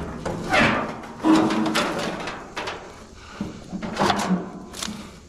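Sheet-metal top panel of an air-conditioner condenser unit, its fan still attached, being lifted off and handled: a series of metal scrapes, rattles and knocks, loudest in the first second and a half.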